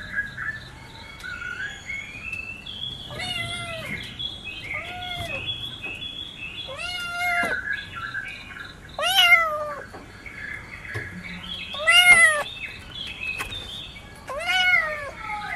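Kittens meowing: five separate meows a few seconds apart, each rising and then falling in pitch, the third and fourth the loudest.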